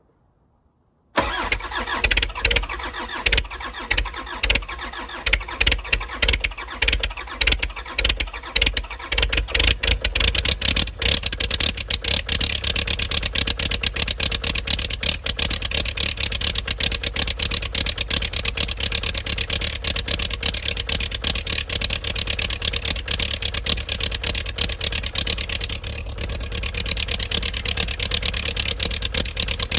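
Cummins 3.3-litre four-cylinder diesel in a skid steer cold-starting with no glow plugs, grid heater or block heater, after sitting for two weeks in the cold. About a second in it turns over and catches, running rough and uneven for around ten seconds before settling into steady running.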